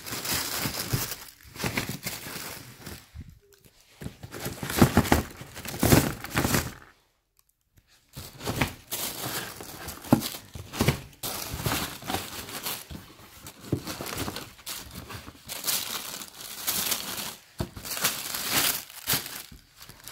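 Tissue paper wrapping inside a sneaker box crinkling and rustling as hands pull and unfold it, in uneven spurts, with about a second of silence some seven seconds in.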